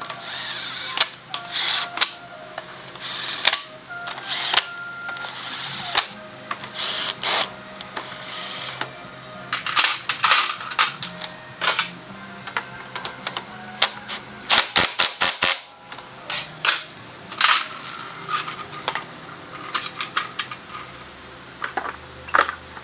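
Repeated sharp metallic clicks and clatters of workshop hand tools during scooter tyre work, including a quick run of clicks about fifteen seconds in, over background music.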